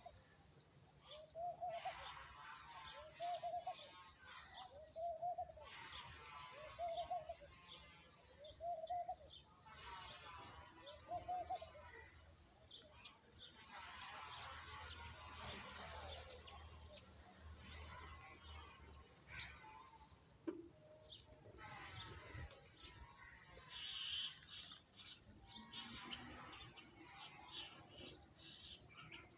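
Sparrows chirping and twittering in short, scattered high calls, busiest around the middle. Through the first half a lower, arched note repeats about every second and a half beneath them.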